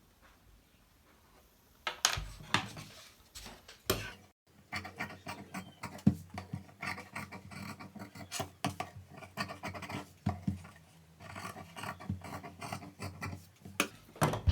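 A marking tool drawing pattern lines on cloth: a quick run of irregular scratching strokes that starts about two seconds in, pauses briefly, then carries on.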